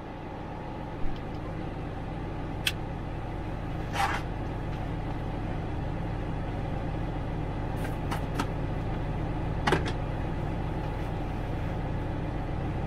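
John Deere tractor's diesel engine running steadily and growing slowly louder, with a few short sharp knocks scattered through it.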